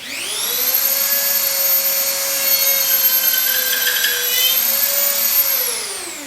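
An electric power tool's motor spins up quickly, runs with a steady high whine for about five seconds, then winds down, falling in pitch near the end.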